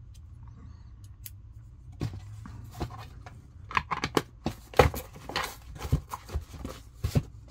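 Irregular clicks and knocks of a precision screwdriver bit kit being handled, starting about two seconds in: a T15 Torx bit taken from the plastic bit tray and fitted, then the kit's case shut and folded into its cloth cover.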